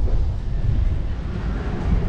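Wind buffeting an on-ride action camera's microphone as a pirate ship swing ride sweeps through its arc: a steady low noise.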